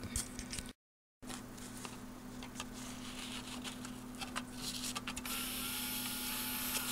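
Light clicks and rustles as a DVD is handled and slid into a slot-loading drive, then about five seconds in the drive's loading motor starts with a steady whirring whine as it takes the disc in. A steady low electrical hum runs underneath.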